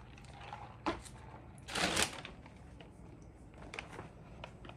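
Soft rustling and handling clicks as clothes are moved about, with a short knock just under a second in and a louder rustle about two seconds in.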